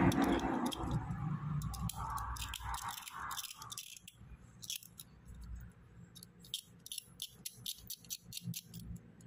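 Small sharp clicks and scrapes of a snap-off knife blade and small metal pieces handled in the fingers, coming thicker after the first few seconds.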